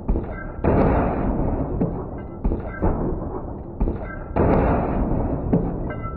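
Volvo XC70 tumbling over in a rollover crash test: repeated heavy crashes as the body hits the ground, each followed by a stretch of scraping and rattling.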